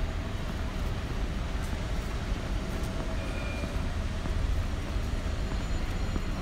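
City street noise: a steady low rumble with a faint hum over it and no single sound standing out.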